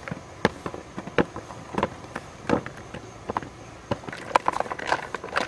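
Small tomatoes and round green eggplants dropped by hand into a plastic bowl, landing as a run of irregular light knocks and clicks, with a quicker cluster near the end.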